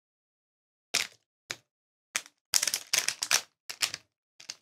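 Plastic anti-static bag crinkling and crackling in short bursts as it is snipped with scissors and pulled open by hand, densest a little past the middle.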